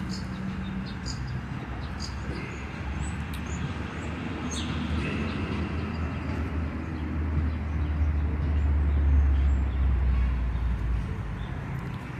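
Low rumble of a passing motor vehicle, building over several seconds to its loudest about nine seconds in and then fading away, over steady street background noise.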